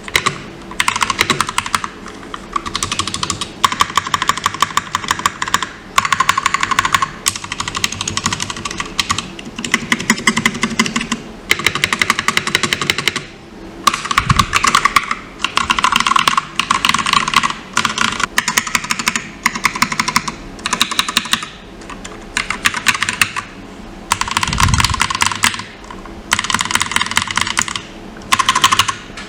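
Typing on a GMMK TKL mechanical keyboard with lubed Glorious Panda tactile switches: fast runs of keystrokes in bursts of a second or two, with short pauses between them.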